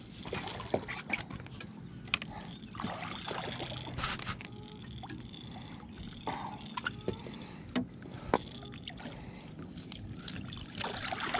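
Scattered clicks, knocks and light water splashes of hands and gear being handled at the side of a fishing boat as a hand reaches into the lake water, over a faint steady hum.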